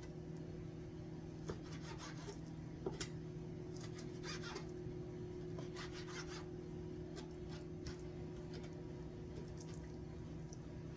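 Ceramic kitchen knife cutting raw chicken breast into chunks on a cutting board: irregular soft taps and scraping strokes as the blade slices through and meets the board. A steady low hum runs underneath.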